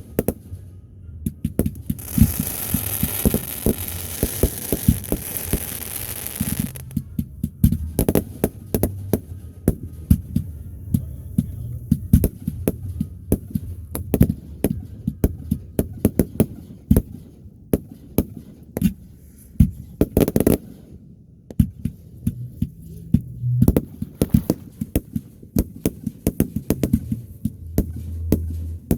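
Fireworks display: aerial shells bursting one after another in deep booms and sharp bangs, with a dense crackling hiss from about two to seven seconds in and again briefly around twenty seconds.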